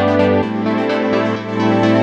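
Background music: synthesizer-led electronic music with sustained chords, a bass line that shifts note about half a second in, and a steady beat.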